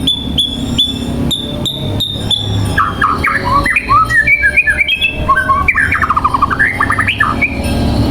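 White-rumped shama singing: first a short high note repeated about twice a second, then from about three seconds in a fast, varied warbling phrase that ends in a rapid trill.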